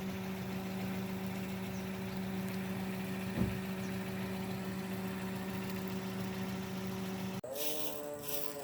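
Steady motor hum at one even pitch with overtones, like an engine or generator idling, cut off suddenly near the end. A single soft thump about three and a half seconds in.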